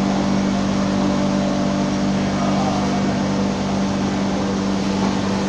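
Namkeen frying plant machinery running: a steady machine hum with a constant low tone under a dense whirring noise, unchanging throughout.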